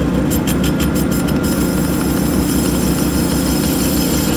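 Manual metal lathe running with a steady hum as a turning tool starts cutting a spinning steel bicycle head tube. A quick run of sharp clicks in the first second or so gives way to a steady high hiss of cutting from about a second and a half in.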